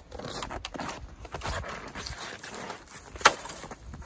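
Footsteps crunching in hard, cold snow and an orange stepladder being handled against the stovepipe, with one sharp knock about three seconds in.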